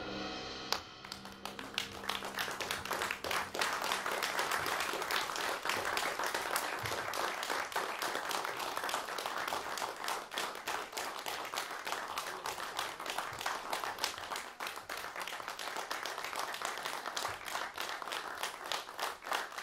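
An audience applauding, many hands clapping steadily. In the first second the jazz trio's final sustained chord rings on, then stops.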